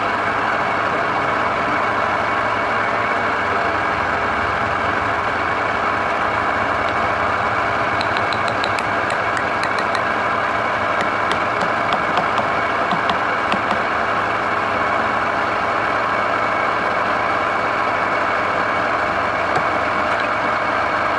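Wood lathe running with a steady motor hum and whine, with a scatter of sharp ticks through the middle.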